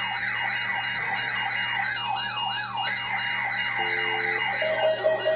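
Electronic siren wailing in quick up-and-down sweeps, about three a second, over steady alarm tones. Near the end a fast string of short beeps joins in.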